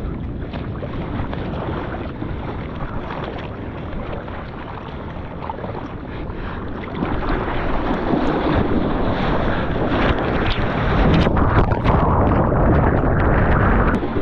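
Seawater sloshing and rushing around a GoPro at water level in the surf, with wind on the microphone. About halfway through a wave's whitewater washes past and the rush grows louder, with a few sharp splashes against the camera housing.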